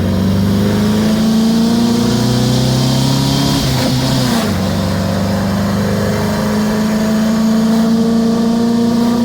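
1977 VW Brasília's 1600 air-cooled flat-four on twin carburettors accelerating hard under load, rising in pitch. About four seconds in the revs drop at a gear change, and the engine then pulls again.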